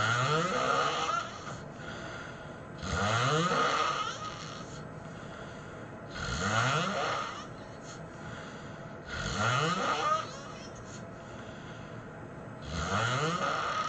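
A man snoring hard, five snores about three seconds apart. Each lasts over a second and rises in pitch.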